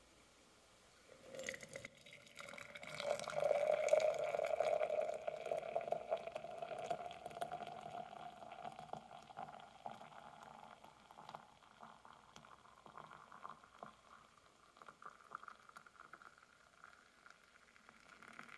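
Grape juice pouring from a clamped tube into a glass mason jar. It starts about a second and a half in and is loudest in the first few seconds. It then goes on quieter and more broken as the jar fills with foam, and cuts off at the end.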